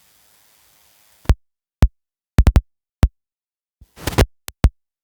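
Electronic drum-machine beat: a run of punchy kick-drum hits whose pitch drops quickly, in an uneven pattern with dead silence between them, starting about a second in.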